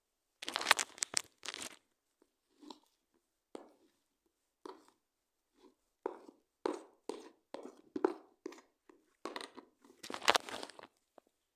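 Homemade slime of shaving foam and toothpaste being worked by hand: a string of short irregular noises, loudest near the start and again about ten seconds in.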